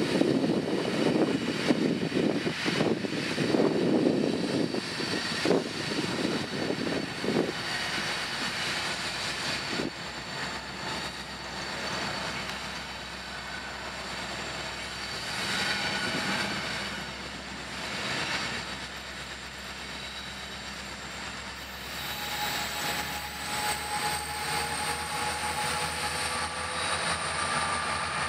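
BNSF diesel freight locomotives approaching and drawing close, a steady engine drone with wheel and rail noise. The first several seconds are rough and gusty; from about two-thirds of the way through, steady engine tones and a high whine come up and rise slightly in pitch as the locomotives near.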